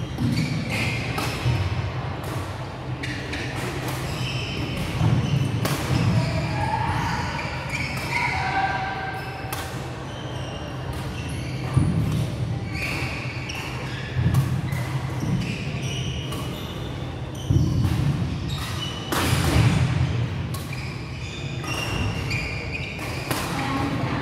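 Badminton rally on a wooden sports-hall floor: sharp racket strikes on the shuttlecock, short shoe squeaks and low thuds of footwork and lunges, echoing in the large hall. Play on neighbouring courts adds more hits and squeaks.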